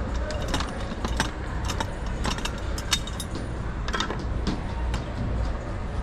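Metal clinking and jingling, many short irregular clinks, as coins are handled from a candy vending machine's coin box, over a steady low hum.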